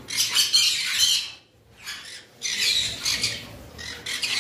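Suncheek green-cheeked conures squawking in rapid runs of harsh, high calls, breaking off for about a second partway through before starting again.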